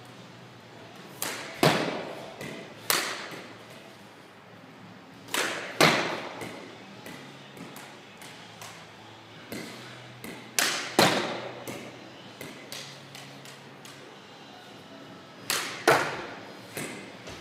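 Sharp cracks of a floorball stick and hard plastic floorball striking, several times, often in pairs about half a second apart, each ringing out in the hall's echo. Lighter taps between them as the ball is handled on the stick.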